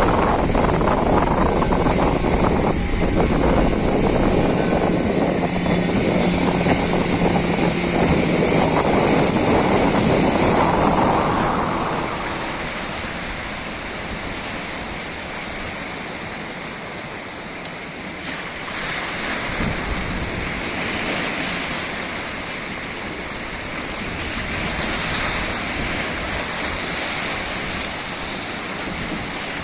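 Heavy surf with wind buffeting the microphone. The noise is loud for the first twelve seconds or so, then eases, and waves wash in again twice later on.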